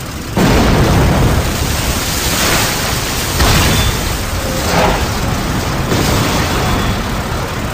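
Battle sound effects: a dense, steady din of explosions that starts abruptly about half a second in, with louder blasts swelling out of it a few times.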